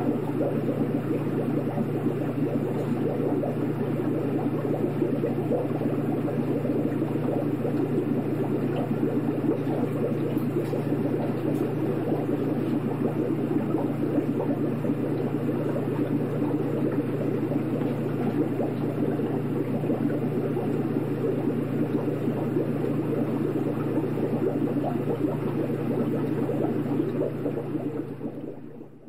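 Aquarium running: a steady low hum under a busy bubbling-water sound, dipping briefly right at the end.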